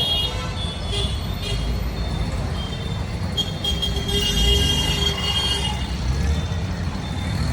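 City street traffic: a steady rumble of engines with vehicle horns sounding, one held horn blast from about three and a half to nearly six seconds in.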